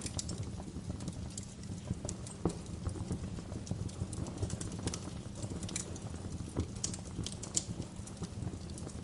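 Wood fire crackling in a fireplace: irregular sharp pops and snaps over a steady low rumble, with one louder pop about two and a half seconds in.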